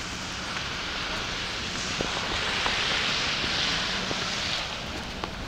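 A passing vehicle: a rushing hiss that builds over a couple of seconds, is loudest a few seconds in, then fades, with a few faint clicks.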